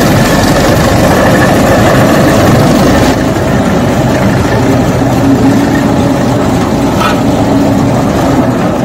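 Old-style road roller's engine running loudly, settling into a steadier note about halfway through.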